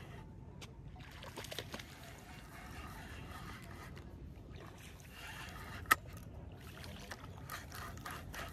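Shimano FX 4000 spinning reel being cranked during a frog-lure retrieve, a patchy ratcheting whir under steady wind rumble on the microphone. One sharp click about six seconds in.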